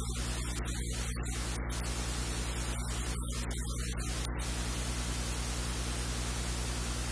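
Steady static hiss over a low electrical hum.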